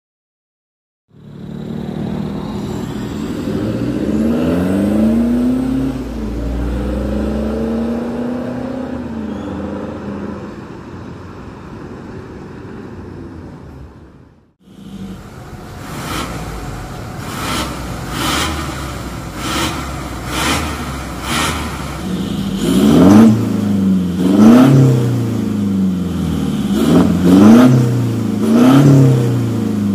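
Toyota Fortuner VRZ's turbodiesel engine breathing through an aftermarket stainless valvetronic full exhaust, revved up and down. After a short break about halfway through, it runs with the exhaust valve open in 'Racing' mode, with quick rev blips every second or two that are the loudest part.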